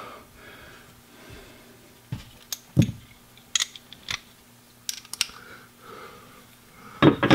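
Scattered light clicks and clacks of hand tools and small metal hardware being handled: a handful of separate clicks spread out from about two seconds in, then a denser cluster near the end.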